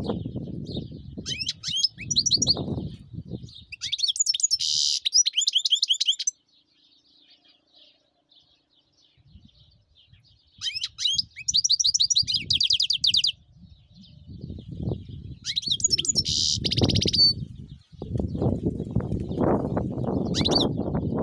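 European goldfinch singing: fast, high twittering trills and rattles in five bursts of a second or two each, with pauses between. A low rumble comes and goes underneath, loudest near the end.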